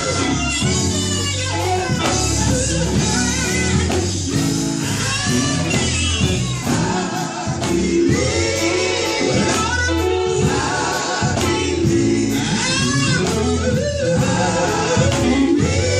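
Gospel group singing live, several voices together with instrumental backing and a steady bass line.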